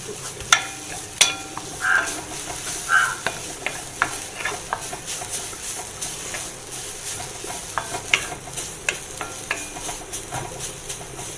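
Grated carrot being stirred and scraped in a hot dry pan, with irregular clicks and scrapes of the stirring utensil over a steady light sizzle as the carrot's water cooks off.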